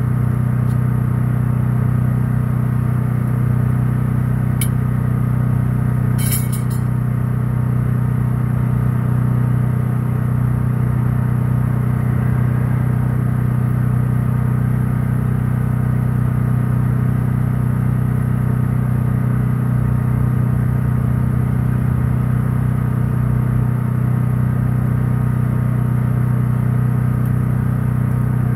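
An engine running steadily, a constant low hum with an even pitch. Two brief sharp clicks come about five and six seconds in.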